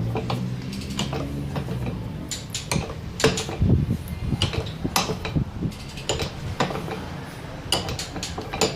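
Irregular metallic clicks and knocks of hand tools working a hydraulic valve lifter, which is being pressed down with a screw to bleed the oil out of it.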